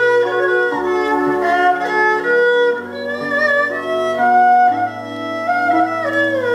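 Ensemble music: a two-string bowed fiddle (erhu) plays a slow melody with sliding notes over held chords and a bass line from an arranger keyboard.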